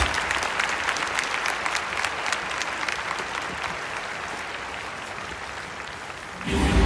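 Stadium crowd clapping, many overlapping claps slowly dying down. Near the end a loud, deep sound starts suddenly over the stadium's sound system.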